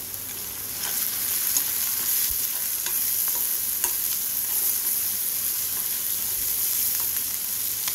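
Chopped onions and turmeric sizzling in hot oil in a metal kadai, stirred with a metal spoon that scrapes and clicks against the pan. The sizzle swells about a second in, as the stirring starts.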